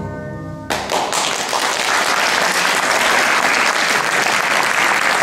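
A held closing chord of recorded music cuts off under a second in, and audience applause breaks out at once and swells, staying loud.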